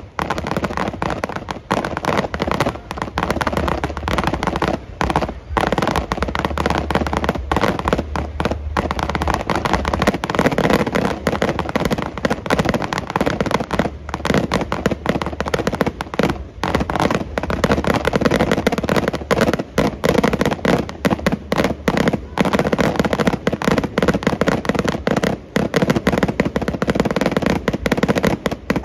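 Aerial fireworks in a nonstop barrage: shell bursts and crackling stars following one another so fast that the bangs run together, with no pause, as in a fireworks finale.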